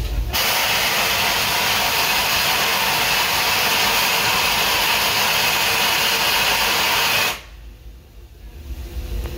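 Steam locomotive Ernest S. Marsh #4 venting a jet of steam beside the track: a loud, steady hiss that starts abruptly and cuts off suddenly after about seven seconds.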